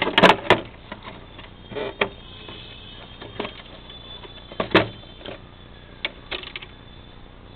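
Irregular clicks and knocks of hardware being handled, a cluster just after the start and a loud single knock a little before five seconds in, over a faint high steady tone in the middle.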